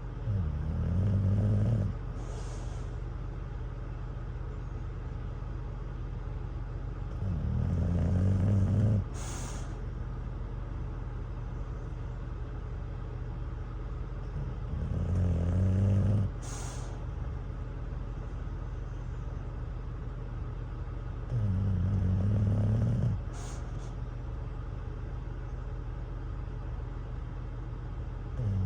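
English bulldog snoring in sleep: four long, low snores about seven seconds apart, each followed by a short hissing breath out, with a fifth snore starting at the end. A steady low hum runs underneath.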